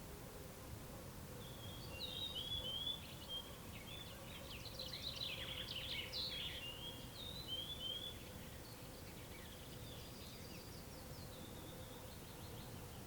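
Wild songbird singing a run of quick, high chirps and trills, loudest a few seconds in and trailing off into fainter notes near the end. Under it run a steady low background hiss and a faint steady hum.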